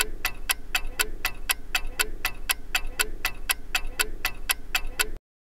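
Ticking clock sound effect for a countdown timer: crisp, even ticks at about four a second, which stop suddenly about five seconds in.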